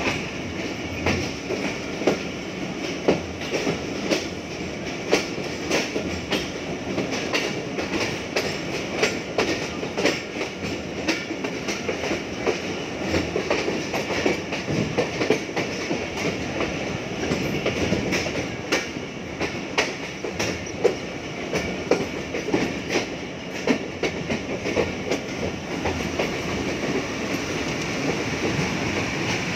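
Passenger train wheels clattering over rail joints and points, heard from a coach doorway: a steady rolling rumble with many sharp, irregular clacks, as the train runs into a station.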